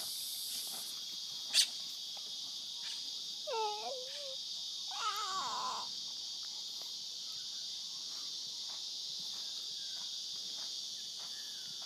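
Steady high-pitched drone of insects. A sharp click comes about a second and a half in, followed by two brief high vocal cries: a short falling one near four seconds and a wavering one around five seconds.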